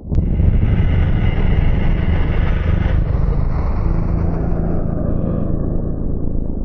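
Anguirus kaiju roar sound effect: one long, harsh, rumbling roar that starts abruptly. Its rasping upper part drops away about three seconds in, leaving a lower rumble that begins to fade near the end.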